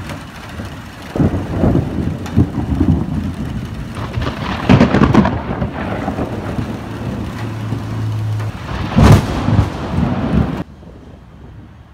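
Thunder rumbling and crackling over light rain, with two louder cracks about five and nine seconds in. The rumble cuts off suddenly near the end.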